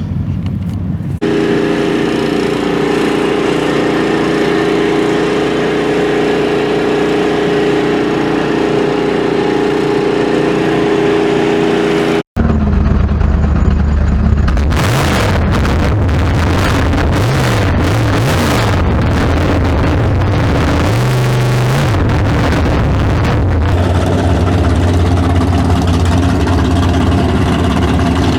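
Big-block V8 with a tunnel ram intake in a 1957 drag car, idling with a steady lope, then revved up and back down several times before settling back to idle.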